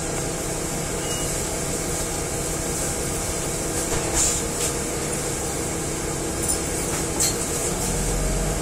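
Interior ride noise of a city transit bus: a steady hum of engine, drivetrain and road noise, with a few short rattles or knocks in the second half. A deeper rumble comes up near the end.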